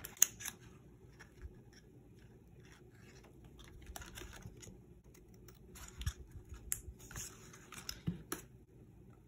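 Scissors snipping through glossy cardstock: quiet, scattered cuts and paper rustling, with a few light clicks.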